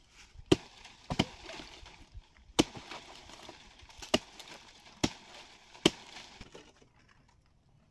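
A hatchet chops into the fibrous trunk of a felled palm tree. There are about six sharp blows at an uneven pace, two of them in quick succession about a second in, and the last near six seconds in.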